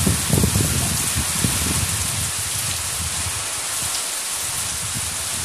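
Heavy monsoon rain pouring steadily, a dense even hiss. Gusts of wind buffet the microphone in the first two seconds or so.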